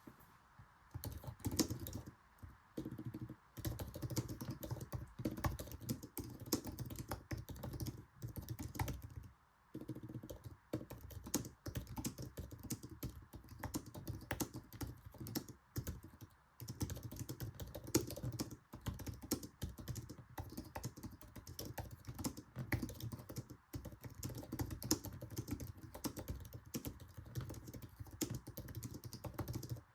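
Fast typing on an Apple Magic Keyboard: rapid, light clicks of its low-profile scissor-switch keys, in runs broken by short pauses.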